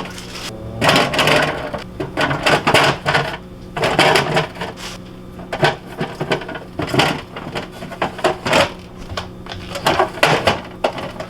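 Refrigerator shelf, crisper bin and stored items being handled: an irregular run of plastic and glass clatters, knocks and scrapes, over a steady low hum.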